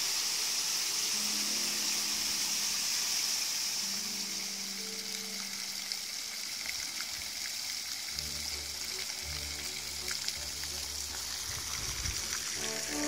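Fountain water splashing and falling into stone basins and pools, a steady hiss.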